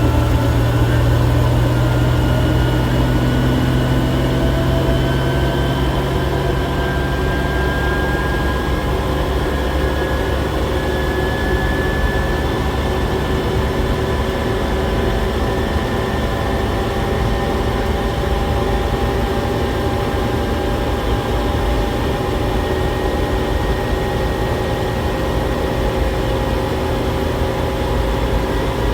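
Kaiser M715 military truck engine and drivetrain pulling steadily in fourth gear, the pitch rising slowly as road speed builds, running on a freshly rebuilt Holley 1920 carburettor.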